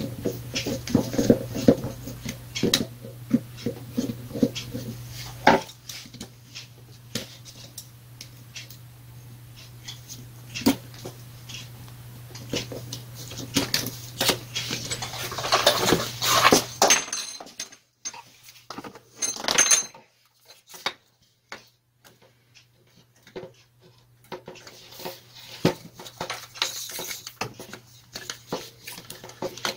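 Handling noise from taking an angle grinder apart: a screwdriver working screws in the plastic motor housing, with scattered clicks and clinks of tools, screws and housing parts on the bench. There is a louder scuffling stretch about fifteen seconds in, and a low hum underneath stops about seventeen seconds in.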